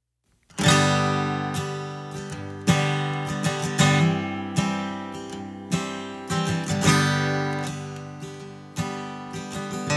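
Acoustic guitar strumming the opening chords of the song, starting about half a second in; strong strokes that ring out and fade between them.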